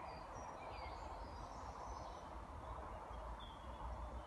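Quiet woodland ambience: birds chirping in short high calls against a steady background hiss and low rumble.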